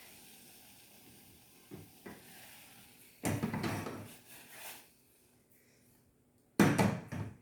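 Kitchen utensils and containers being handled: two short sliding clatters about three seconds apart, the second the louder, with a couple of light knocks before them.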